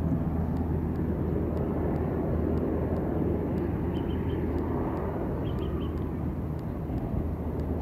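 Steady low outdoor rumble, with a faint cluster of three quick high chirps about four seconds in and again twice more.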